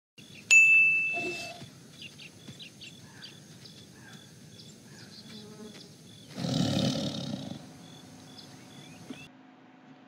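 A tiger roars once, lasting about a second, around six and a half seconds in. Before it, a sharp ringing ding near the start fades over about a second.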